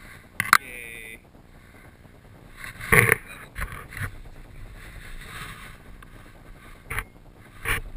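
Gliding down a packed ski run: a steady hiss of edges sliding over snow, broken by sharp loud scrapes or knocks about half a second in, at about three seconds and near the end as the rider hits bumps.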